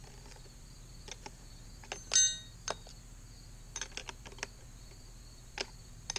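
A wrench clicking and clinking against the bar nuts of a cordless chainsaw, a few light clicks scattered through. One loud, ringing metal clink comes about two seconds in. The 9/16 wrench doesn't fit the nuts, which may be metric.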